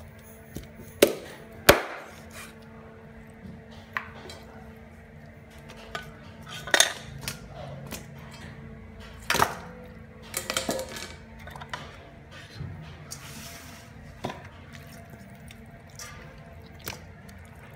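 Irregular sharp knocks a few seconds apart, the loudest two near the start: a cleaver chopping raw chicken on a wooden chopping board and the handling of chicken pieces in a stainless steel bowl. A faint steady hum runs underneath.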